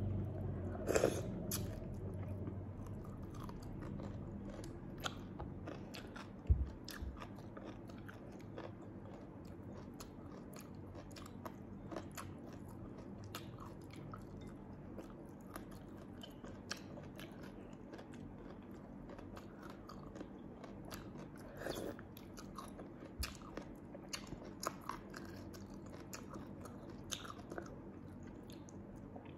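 Close-up eating sounds: wet clicks, sucking and chewing as sea snails in chili sauce are picked apart by hand and eaten. Scattered short clicks throughout, a few of them sharper and louder.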